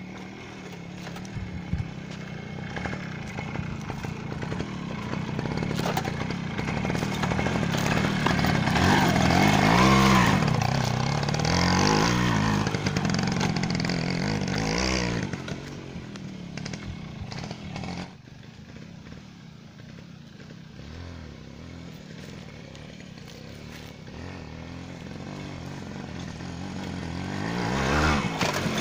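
Suzuki Max 100 motorcycle's two-stroke single-cylinder engine revving up and down as the bike is ridden over dirt tracks. The pitch rises and falls with the throttle, and it is loudest about ten seconds in and again near the end as the bike comes close.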